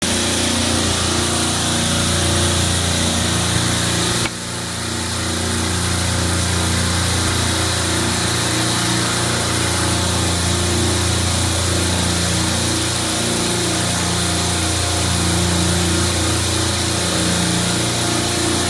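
Refrigeration compressor rack running: a loud, steady machine drone of hum and hiss, with a brief dip about four seconds in.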